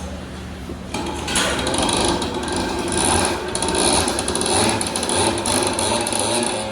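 Rapid mechanical clatter of a tool working on metal, starting suddenly about a second in and going on without a break.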